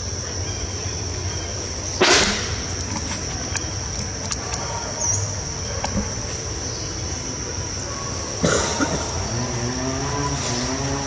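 Outdoor ambience with a steady high-pitched insect drone. A sharp knock comes about two seconds in and another about three seconds before the end, and a voice with wavering pitch starts up near the end.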